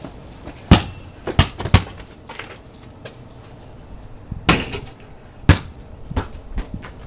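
A basketball bouncing and striking the hoop: a string of sharp thumps and knocks, the loudest about a second in and again about four and a half seconds in.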